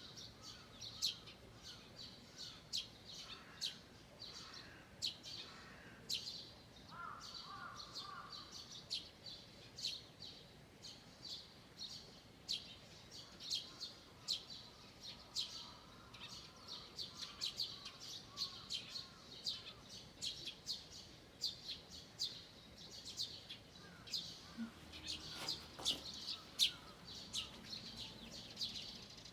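Forest birds chirping and singing: a steady run of short high chirps, with lower warbling phrases now and then.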